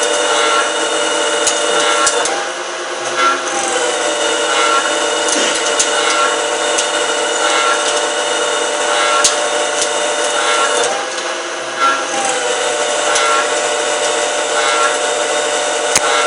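CNC lathe running and machining, a steady whine of several tones over a scraping cutting noise. Twice, about two and eleven seconds in, the sound drops briefly and the whine slides in pitch before settling again.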